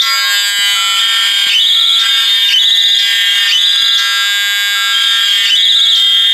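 Fire alarm notification appliances sounding in alarm, set off by a pulled manual pull station. A loud electronic tone steps up in pitch and warbles, repeating about once a second, with other steady alarm tones sounding over it.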